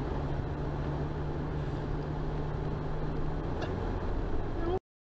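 Steady engine and road noise inside a moving car, with a low hum; it cuts off suddenly near the end.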